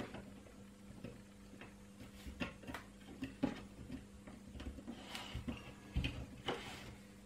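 Irregular small clicks and knocks of a plastic PCB holder's clamps being adjusted and a small circuit board being fitted into them, with handling rustle and a faint steady hum underneath.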